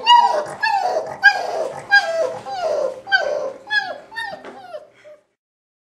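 Yellow Labrador retriever puppy shut in a crate, crying: a run of short yelping cries, each falling in pitch, about two a second. They grow fainter and stop about five seconds in.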